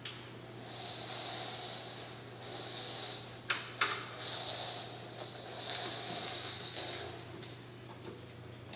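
Fire hose being pulled and folded into a metal bumper hose tray: four rasping swishes of the hose jacket sliding against the hose and the tray, each about a second long, with two sharp knocks about halfway through.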